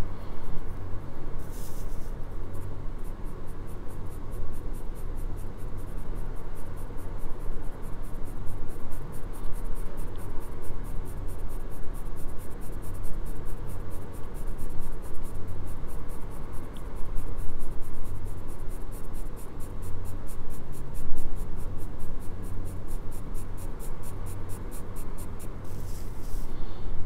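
Graphite pencil scratching on drawing paper in short back-and-forth shading strokes, a steady rhythm of about four strokes a second.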